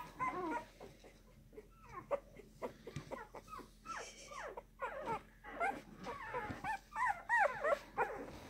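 Two-week-old bully-breed puppy whimpering and squeaking in many short, high cries that rise and fall in pitch, growing busier in the second half.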